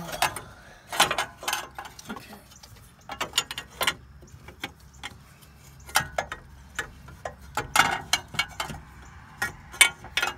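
Irregular metallic clicks, taps and scrapes as a metal transmission dipstick tube is worked back and forth past the exhaust headers and frame.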